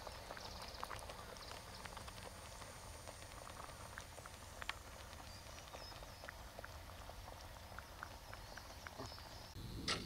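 Faint, quiet countryside ambience: a soft steady background with scattered small ticks and a few faint high chirps of small birds, and a sharper click near the end.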